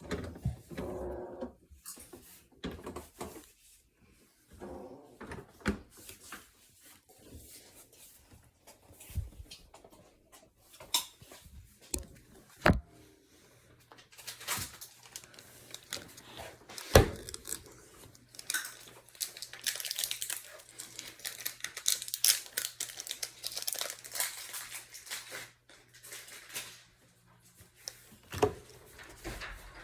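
Packaging being handled: crinkling and tearing with rapid small clicks, and several sharp knocks, the loudest about seventeen seconds in.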